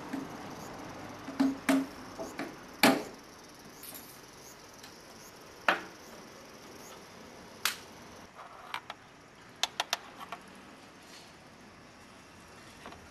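Irregular sharp knocks and clicks of metal and plastic parts being handled, the loudest about three seconds in and a quick run of three clicks later on: the oil-filler funnel and oil-change gear being moved in an open engine bay.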